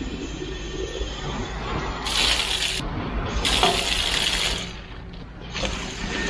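Water gushing from a push-button public drinking-water tap, splashing onto shingle and into a plastic bottle being filled. It comes in three spurts, about two seconds in, at three and a half seconds, and again near the end.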